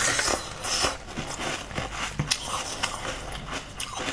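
Close-miked eating sounds of soft, wet jelly being sucked and slurped: irregular squelches and sharp mouth clicks.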